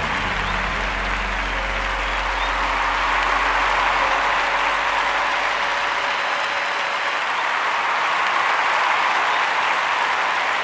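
Audience applauding steadily, with the last of some background music fading out in the first second or so.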